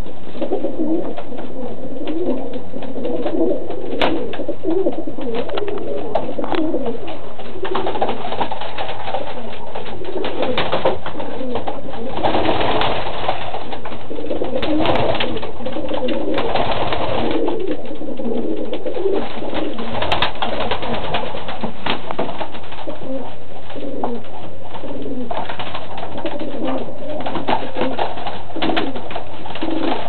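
Many domestic pigeons cooing continuously, overlapping calls in a small enclosed loft, with scattered sharp clicks and a louder, noisier stretch midway.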